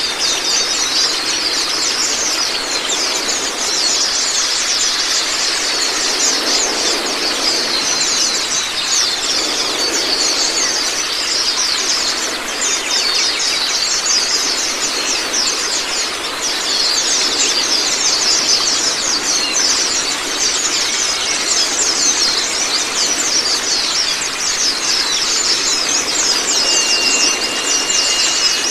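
White-eyes (Zosterops) singing fast, high-pitched chattering trills without a break, with a few sweeping whistled notes, over a steady rush of running water.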